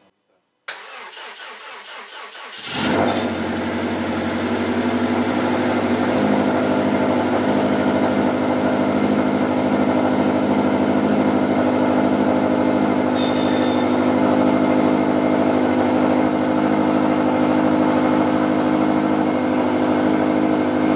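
A freshly rebuilt 2013 Subaru STI's turbocharged 2.5-litre flat-four is cranked by the starter for about two seconds, catches, and settles into a steady idle. It is the engine's first start after the rebuild, a cold start, and it runs really loud.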